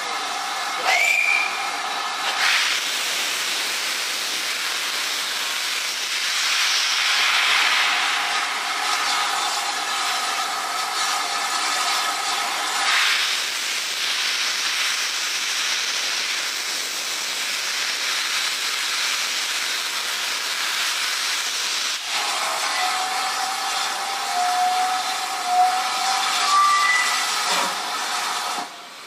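GWR 2-6-0 Mogul steam locomotive No. 9351 hissing steam loudly while standing ready to depart, with a short rising whistle about a second in. The hiss drops to a quieter level about halfway through, and thin pitched tones come and go near the end as the engine gets under way.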